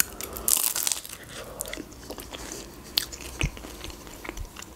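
Biting into a McDonald's fried fruit pie, with a crisp crunch of the crust about half a second in, then chewing with small crackles and mouth clicks.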